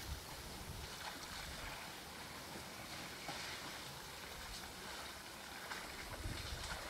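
Steady outdoor hiss with a few faint ticks, and a low wind rumble on the microphone returning about six seconds in.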